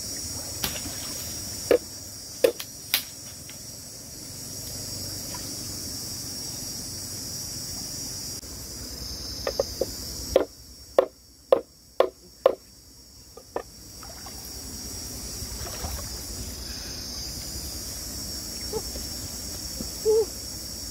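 Knife chopping lemongrass on a wooden board: about six sharp knocks a little past halfway, with a few single taps earlier. A steady high insect drone runs underneath.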